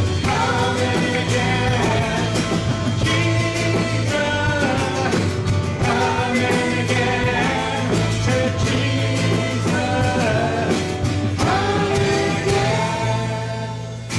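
Live worship band playing a rock-style song: a man singing lead over strummed acoustic guitar and electric guitar, with backing vocals.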